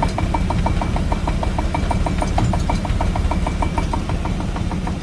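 1999 Chevy S10 running with its driveshaft spinning, a low steady rumble under a fast, even clicking about seven times a second. The driveshaft wobbles on worn-out U-joints. A faint thin whine stops about four seconds in.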